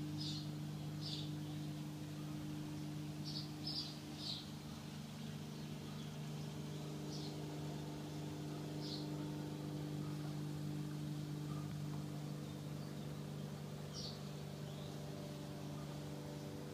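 A machine running with a steady low hum, while small birds give short high chirps every few seconds.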